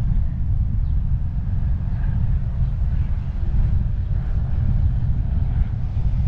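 Steady low wind rumble buffeting the microphone of a car-roof-mounted camera, mixed with the car's road noise as it drives along.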